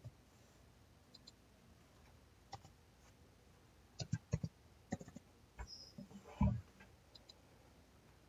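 Faint, scattered clicks of a computer mouse and keyboard keys being pressed, with a quick cluster about four seconds in and a louder knock about six and a half seconds in.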